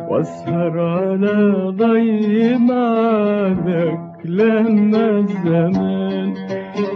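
A man singing long wordless melismatic phrases of classical Arabic song in maqam Kurd, with held, wavering notes and a brief breath pause about four seconds in.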